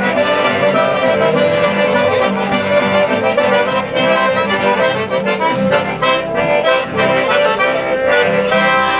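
Cajun accordions playing a tune together, backed by acoustic guitars strumming a steady beat.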